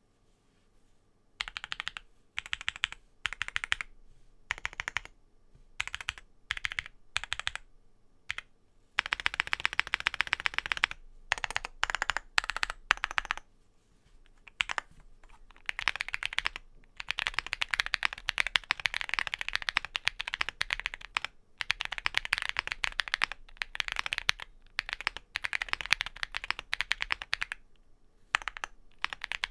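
Typing on an Owlabs Mr. Suit R2 custom mechanical keyboard with stock DesignerStudio White Jade tactile switches on an FR4 plate. It starts with short groups of separate keystrokes, then a quick burst, and turns into fast, near-continuous typing about halfway through.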